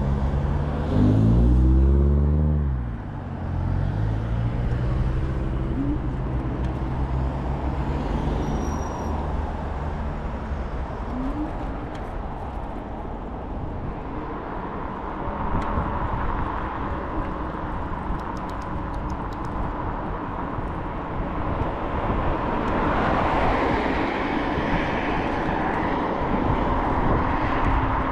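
Wind and road noise from an electric scooter riding at speed, heard through a chest-mounted action camera. About a second in, a passing motor vehicle is the loudest sound, with a pitch that rises and then falls.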